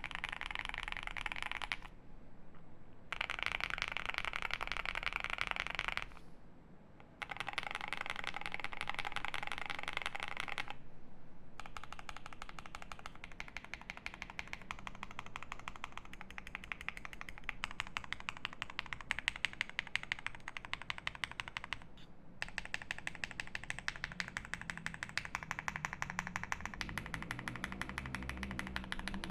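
Very fast typing on a mechanical keyboard, a Jelly Epoch 75% with lubed Alpaca V2 linear switches and GMK keycaps, as a dense patter of keystrokes. The typing comes in runs with short pauses about two, six and eleven seconds in, and a brief break a little past twenty-two seconds.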